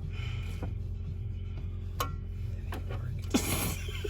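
Hand tools clinking against metal on an engine being worked on, a few separate sharp clinks, one ringing briefly, and a louder scrape near the end, over a steady low hum.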